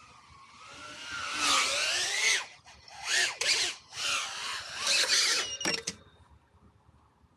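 Small FPV quadcopter (BetaFPV Pavo30 cinewhoop) with brushless motors and ducted propellers whining overhead. It rises and falls in pitch with repeated loud throttle punches through power loops, then ends in a few short sharp bursts about six seconds in as the drone crashes.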